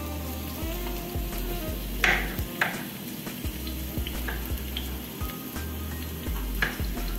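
Chopped onion frying in hot oil in a pan, a steady sizzle. A few sharp knife strokes on a bamboo cutting board as a bell pepper is sliced, the loudest about two seconds in.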